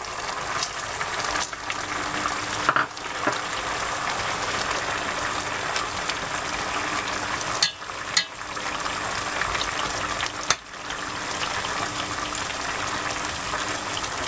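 Rabbit adobo sauce bubbling and sizzling steadily in a cooking pot, with a couple of sharp clicks about eight seconds in.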